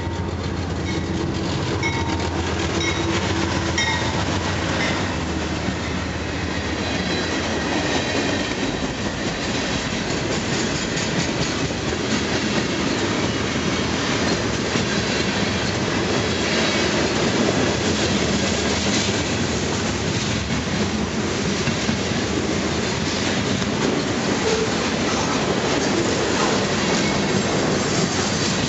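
Diesel-hauled freight train passing close at speed: the locomotive's engine hum in the first few seconds, then a long run of freight cars (tank cars and loaded centerbeam flatcars) rolling by, wheels clacking over rail joints with now and then a thin wheel squeal.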